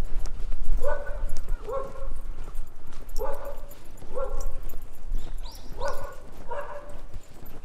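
A dog barking, six short barks coming in three pairs, over footsteps crunching on gravel.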